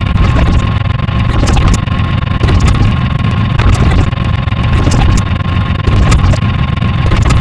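A loud, steady low engine rumble with a thin steady whine and frequent crackling clicks.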